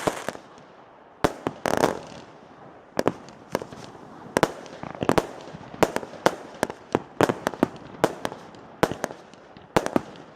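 Minotaur firework barrage firing its shots: sharp bangs at irregular spacing, about two a second, some in quick clusters.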